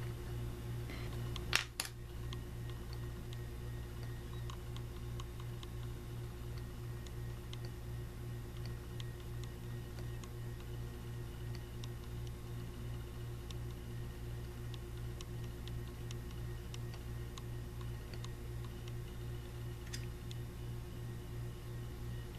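A sharp double knock about a second and a half in as the camera is handled and repositioned, over a steady low electrical hum with faint scattered ticks and a small click near the end.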